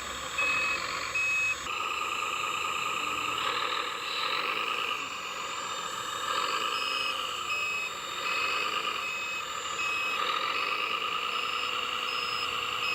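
Reverse-warning beeper of a radio-controlled construction vehicle, beeping steadily about every two-thirds of a second, over the whine of its electric drive motors and gears.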